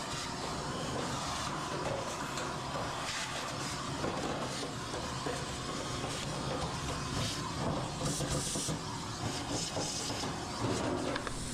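Steady mechanical running noise with a hiss and faint irregular clicking, from a machine running in the background.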